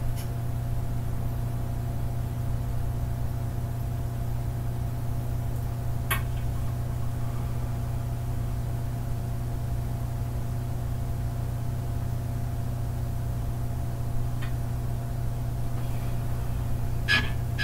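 Steady electrical hum and hiss from an electric guitar amplifier switched on while the strings are silent, with a few faint clicks, and a short cluster of clicks and string noise near the end.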